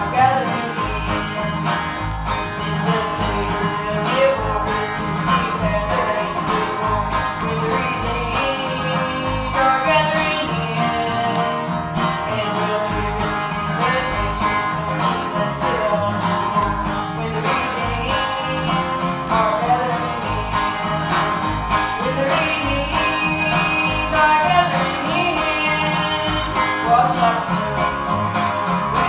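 Live bluegrass gospel band playing, with banjo and acoustic guitar picking over a steady bass beat.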